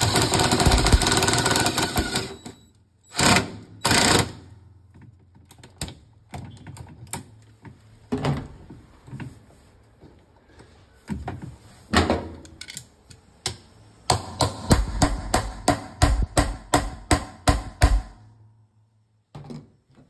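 Cordless drill spinning a socket on a long extension against the washer agitator's retaining bolt, a loud rapid clatter for about two seconds, then two short bursts. The bolt head is stripped, and a smaller socket is being used to work it loose. After scattered knocks of the tools, a quick run of clicks comes from about fourteen to eighteen seconds.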